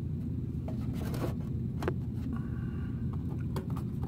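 Light clicks and scrapes of small plastic sauce cups being opened and handled, over a steady low hum.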